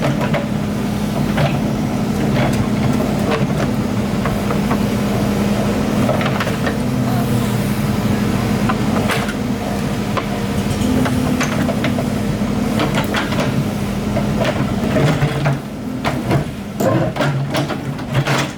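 Excavator's diesel engine running steadily under load, with scattered metallic clanks and knocks from the working machine, which come thicker and sharper in the last few seconds.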